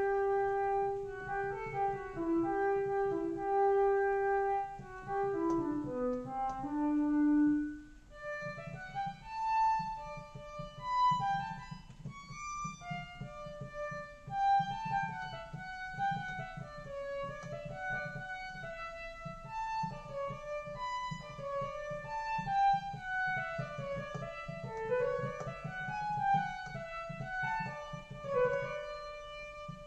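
Behringer Crave monophonic analog synthesizer with a violin patch (filter resonance raised, a little reverb), played from a keyboard. A few slow held notes step downward, then from about eight seconds in comes a quicker melody of shorter notes in a higher register.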